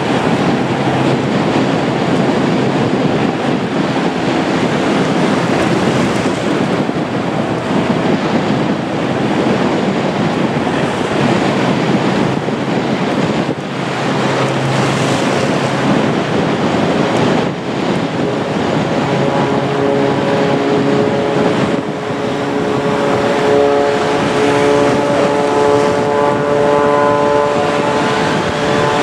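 Aircraft engines running loud and steady, mixed with wind buffeting the microphone. Steady engine tones come up over the roar in the second half and grow stronger toward the end.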